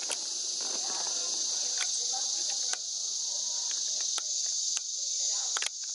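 A steady, high-pitched chorus of insects, with several sharp clicks scattered through it.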